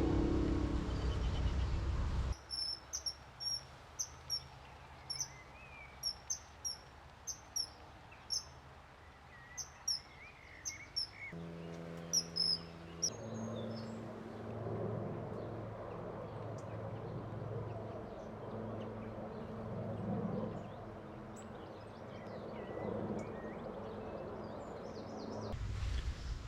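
Kingfisher calls: a run of short, shrill, high-pitched whistles, one or two a second, starting about two seconds in as music cuts off and lasting about nine seconds. After a brief low hum, a steady low background noise follows with only a few faint chirps.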